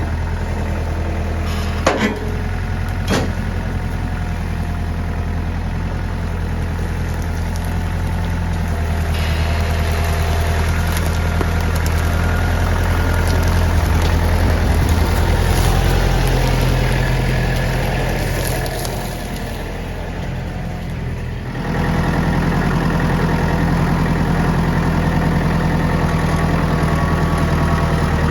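An engine running steadily at idle, with two sharp knocks about two and three seconds in. It eases off briefly about two-thirds of the way through, then comes back up suddenly.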